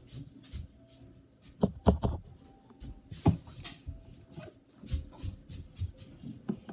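A few light knocks and taps of small toys being handled and flipped over on a hard surface, in a cluster about one and a half to two seconds in and again a little past three seconds.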